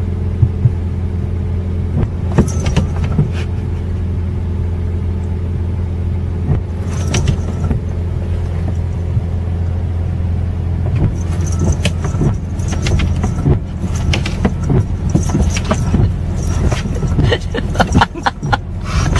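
A motor vehicle engine running with a steady low hum, with scattered clicks and knocks over it.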